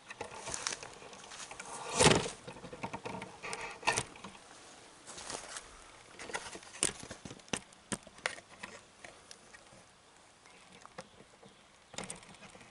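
Scattered light pattering taps and rustles, irregular in timing, with one louder rustle about two seconds in.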